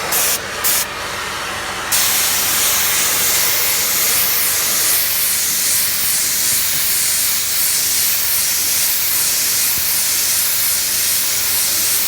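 Paint spray gun spraying dye onto a leather car seat: two short hisses in the first second, then a steady hiss that runs on, over a steady whir.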